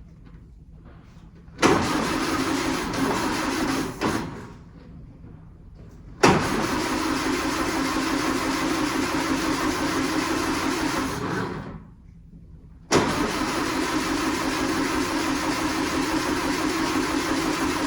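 The 1939 Austin 12's starter motor cranking the engine in three attempts, each starting with a sharp clunk as the starter engages. The first is short and the last two run for several seconds. The engine turns over steadily but does not catch: it still won't start on freshly primed fuel.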